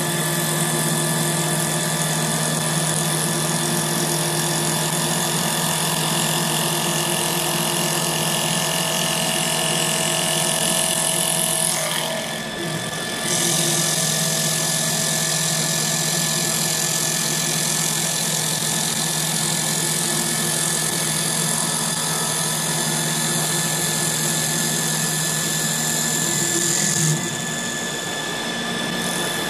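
EagleTec EA-TL1530B CNC wood lathe running, its tool turning the outside of a spinning wooden blank: a steady machine hum with a hiss of cutting. The hiss drops away briefly about twelve seconds in.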